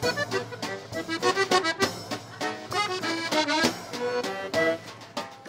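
Instrumental background music: a quick melody of short notes over sustained low chords.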